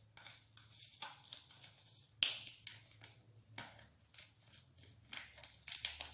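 Paper sachet of flan caramel powder rustling and being tapped as the powder is shaken into a saucepan: a string of short crinkles and taps, the loudest about two seconds in.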